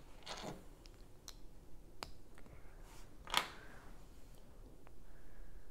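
Plastic Lego bricks being handled and fitted together, giving a few separate sharp clicks, the loudest about three and a half seconds in.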